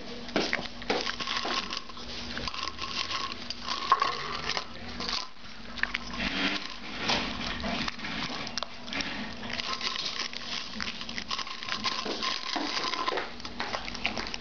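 Small dog eating dry kibble from a stainless-steel bowl: steady, irregular crunching with quick clinks and rattles of kibble and muzzle against the metal bowl.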